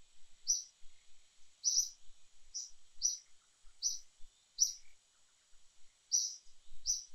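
A bird repeating short, high chirps, about eight of them at uneven intervals, over a faint steady high-pitched hiss.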